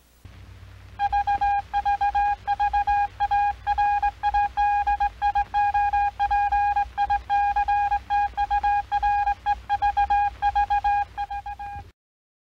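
Morse code beeps: one steady tone keyed on and off in short and long pulses, over a low hum. It starts about a second in and cuts off abruptly near the end.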